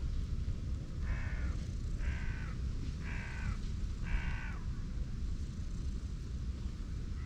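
A crow cawing four times, about a second apart, each call short and slightly falling at its end, over a steady low rumble.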